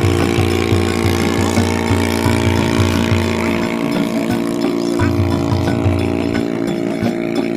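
Background music: a held droning chord over a pulsing bass beat that drops out twice and comes back.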